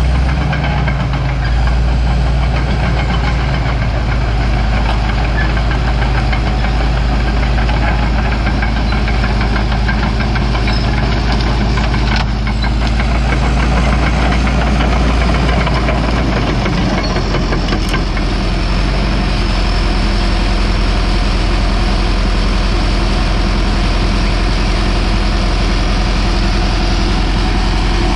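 Caterpillar D4H crawler dozer's four-cylinder Cat 3304 diesel engine running steadily under load as the machine pushes soil with its blade. Its low engine note shifts a little over halfway through.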